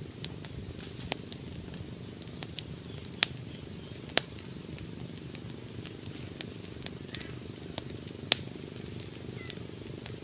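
Small open fire of twigs and dry grass crackling, with sharp pops scattered irregularly throughout, the loudest about three, four and eight seconds in, over a steady low rumble.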